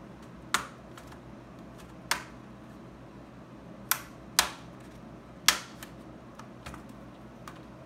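The plastic snap-clips of an HP laptop's bottom case pop loose one after another as the cover is pried open along its seam with a pry tool. There are five sharp clicks spread over several seconds, with fainter ticks between them.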